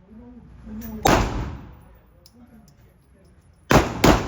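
Gunshots: three loud reports, one about a second in with a ringing tail and two in quick succession near the end, plus a fainter shot just before the first.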